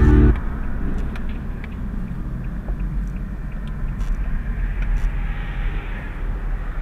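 Cabin noise of an Infiniti G37 on the move: a steady low engine and road rumble with a few faint ticks. Rock music from the car stereo cuts off right at the start.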